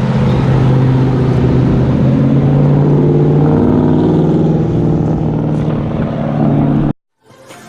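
A car engine running loud and steady at a held speed, its pitch drifting up slightly partway through, then cut off suddenly near the end.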